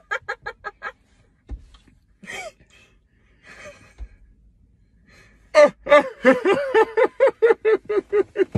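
Young people laughing. There is a quick run of laughter at the start, then a few breathy, held-back giggles, and from about five and a half seconds a young woman's loud burst of high-pitched laughter at about five "ha"s a second.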